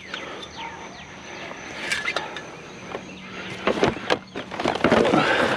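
Items in a curbside junk pile being handled and moved, with scattered knocks and clatter over rustling.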